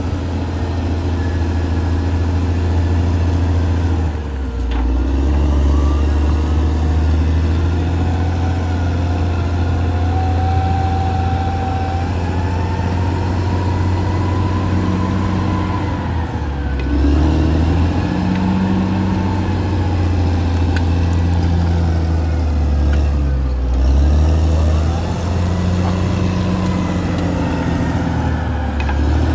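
Caterpillar D6R XL bulldozer's diesel engine running under working load. Its deep drone dips and picks back up every several seconds, and a fainter whine above it rises and falls.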